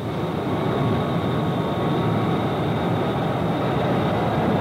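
Jet airliner engine and cabin noise for a simulated landing: a broad rush that swells up at the start and then holds steady, with a thin high whine riding over it.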